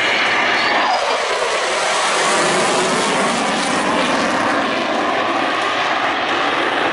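F-35A Lightning II's Pratt & Whitney F135 afterburning turbofan roaring in afterburner during a hard, high-G turn. The roar grows deeper from about two seconds in.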